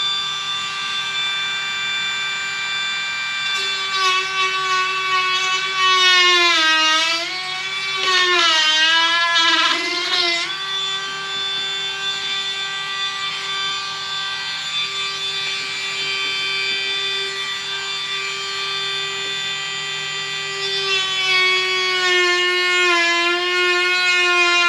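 Cordless Dremel rotary tool running at high speed as it trims a plastic fender, a steady high whine. Several times, about a quarter to two-fifths of the way in, the pitch sags and wavers as the cutter bites into the plastic under load, then recovers.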